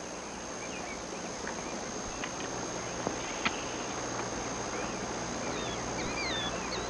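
Outdoor woodland ambience with a steady hiss, a few faint ticks, and from about five seconds in a bird repeating short, falling chirps.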